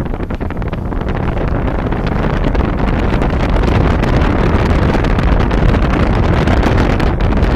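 Wind buffeting a camera microphone held out of a moving car's window: a loud, low, blustery rush mixed with the car's road noise, getting a little louder over the first few seconds.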